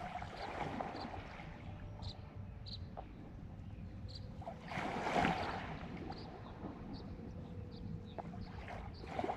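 Small waves lapping on a lake shore, with one wash swelling and falling away about five seconds in, and faint short high chirps throughout.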